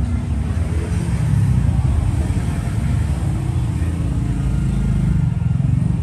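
Steady low rumble of road traffic, with a vehicle engine's hum wavering in pitch.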